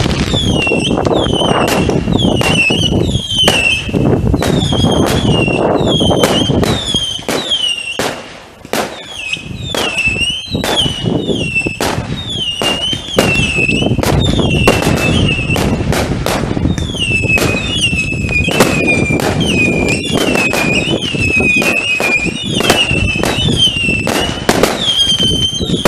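Fireworks going off in quick succession: many sharp bangs and crackles over a low rumble. Running through them is an almost unbroken string of high whistles that dip and rise in pitch. The bangs ease off briefly about eight seconds in.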